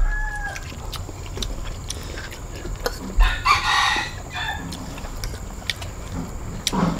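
Chickens calling nearby, with a rooster's louder call a little after three seconds in. Light clinks of a metal fork against a plate come between the calls.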